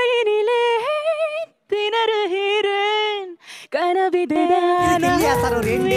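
A woman singing solo into a handheld microphone: long held notes with vibrato in three phrases, unaccompanied at first, with a fuller backing sound joining near the end.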